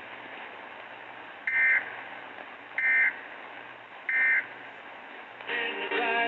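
Emergency Alert System end-of-message data bursts: three short, shrill warbling bursts about a second and a quarter apart, marking the end of the weather warning, heard through AM radio hiss. Music resumes near the end.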